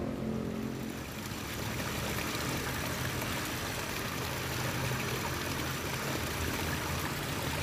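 Small waterfall trickling and splashing over rocks into a pool, a steady hiss of running water with a low rumble underneath.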